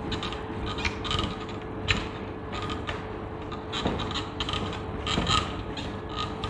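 A board eraser wiping across a whiteboard in repeated short strokes, a scraping, rubbing sound.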